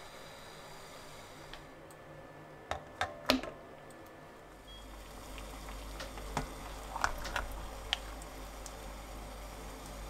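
Kitchen handling noises: a few light clicks and knocks, in two small clusters, over a steady low background hum that grows louder about halfway through.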